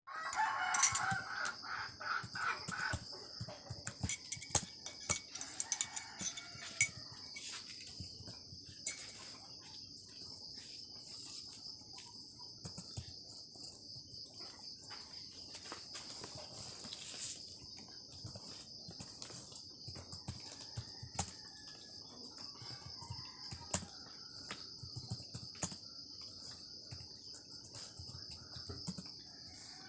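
Computer keyboard keys clicking in irregular runs, over a steady high buzz of insects. A rooster crows in the first few seconds, and fainter calls come later on.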